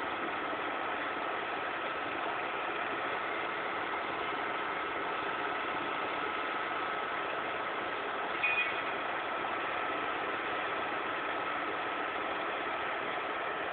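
Heavy diesel engine idling steadily with a constant whine. A brief, sharper higher-pitched sound stands out about eight and a half seconds in.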